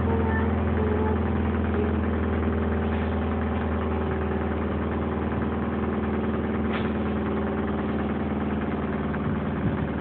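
An engine idling at an even pitch, with no revving or load.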